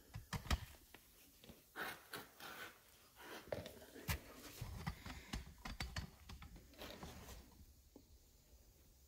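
Faint, scattered clicks, taps and short rustles of hands handling tools and fiberglass materials at close range.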